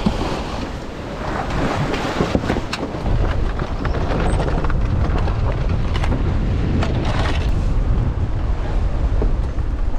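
Strong wind buffeting the microphone aboard a sailing yacht under way, with waves rushing and splashing against the hull.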